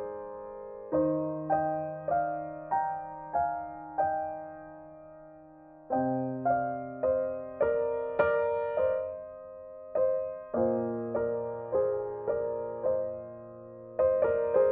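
Slow background piano music: single notes struck one after another and dying away over held bass notes.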